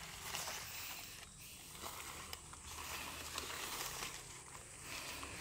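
Rustling and crackling of coffee-plant leaves and branches handled close to the microphone, an uneven hiss broken by small sharp clicks.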